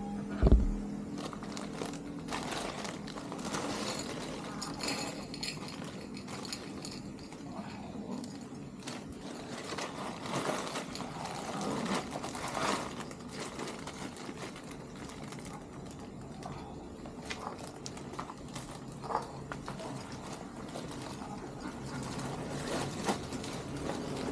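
Cats and kittens eating together off a concrete floor: irregular small clicks and crackles of chewing and jostling, with a low thump about half a second in.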